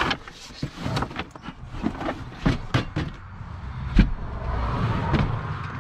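Handling noise as a folded plastic table is pulled out of a wooden under-bed storage compartment: a series of knocks and clatters, the loudest about four seconds in, followed by scraping and rustling.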